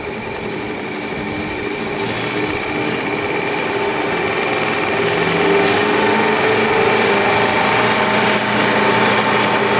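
Rong Fu RF-19V drill press running in reverse on its inverter drive, the motor and belt-driven spindle getting steadily louder as the speed is turned up toward about 2,000 RPM.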